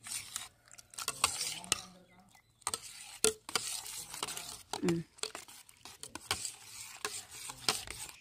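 Metal spoon stirring chopped fruit in milk in a stainless steel pot: wet swishing broken by frequent, irregular clinks of the spoon against the pot.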